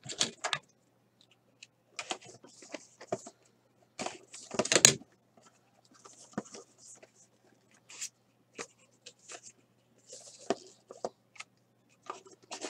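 Hands handling a trading-card box and its contents: irregular clicks, taps and rustles of cardboard and plastic card holders. The loudest is a brief crinkling rustle about five seconds in.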